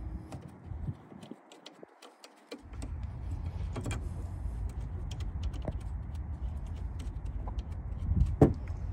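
Small metallic clicks and taps as a brake caliper bolt is fitted and the tools and parts are handled, with a steady low rumble from about three seconds in and one louder knock near the end.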